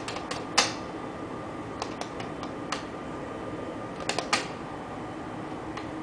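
Elevator up call button clicking as a finger presses it again and again: about ten sharp clicks in uneven groups, the loudest about half a second in and just after four seconds. A steady hum runs underneath.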